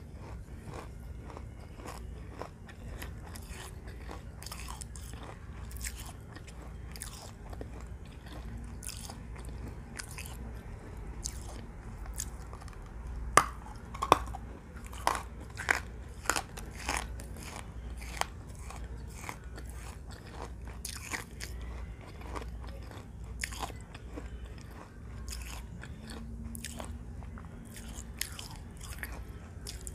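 Close-up chewing of hard pieces of baked clay: a steady run of dry, sharp crunches and cracks as the pieces are bitten and ground between the teeth, loudest and thickest about halfway through.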